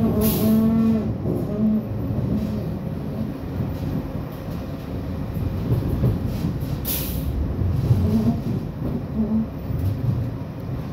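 Croydon Tramlink tram running along the track, heard from inside the carriage: a steady rumble with a whine near the start. Two brief high hisses come near the start and about seven seconds in.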